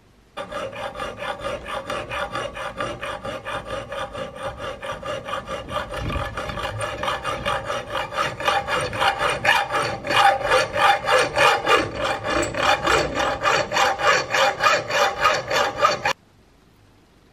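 Hacksaw cutting through a small metal tube clamped in a vise, in quick even strokes about three a second over a steady ringing note. The strokes grow louder about ten seconds in and stop suddenly near the end.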